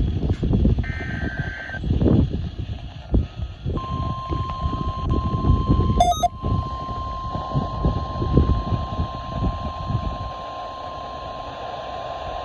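Weather radio alert: a short data burst of buzzing tones ends about a second in, then from about four seconds in the steady single-pitch 1050 Hz warning alarm tone sounds and holds, the signal that a warning, here a snow squall warning, is being issued. A loud, uneven low rumble runs underneath, with a brief click about six seconds in.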